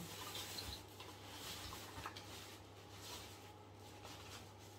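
Faint rustling of a bag being rummaged through by hand, coming in several short soft patches, over a steady low hum.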